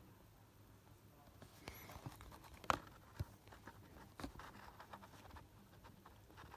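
Blister-packed Matchbox toy cars being handled: soft rustling of card and plastic packaging with a few sharp clicks and taps, the loudest about three and four seconds in.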